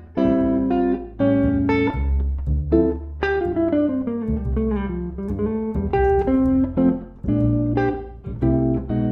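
Jazz duo of hollow-body archtop electric guitar and plucked double bass: the guitar plays chords, with a descending run through the middle, over walking low bass notes.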